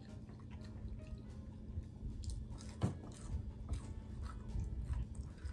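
Close-up chewing and crunching on a battered onion ring, with a single loudest crunch about halfway through.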